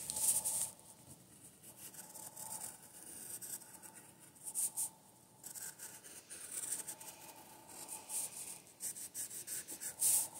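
Graphite pencil scratching on paper in runs of short, quick strokes, with quiet pauses between; the strokes come thickest near the end.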